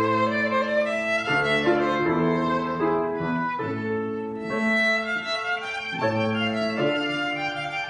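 Violin playing a classical melody over an accompaniment of low held notes that change about every second.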